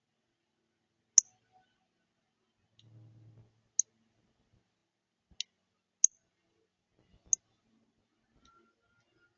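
Birds pecking at a feeder: five sharp, irregularly spaced clicks of beaks striking the feeder and cracking seed. A short low rumble comes about three seconds in.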